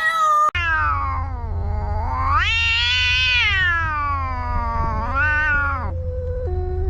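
Domestic cat yowling: one long, drawn-out caterwaul of about five seconds that falls, swoops up high and falls again, over a steady low hum. A shorter cat cry before it cuts off abruptly about half a second in.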